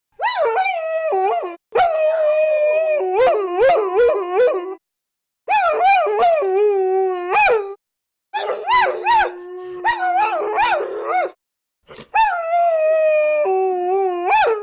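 Several dogs howling together in long, wavering howls, some pitches held steady while others rise and fall over them. They come in five stretches, each cut off suddenly into silence.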